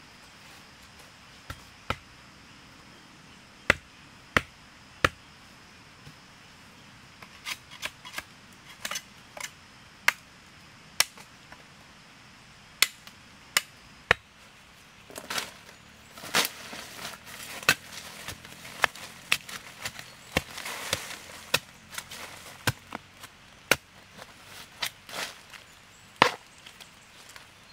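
A blade chopping wild bamboo shoots: sharp single chops about a second apart. About halfway through, rustling of dry leaf litter joins in, with more chops and knocks among it.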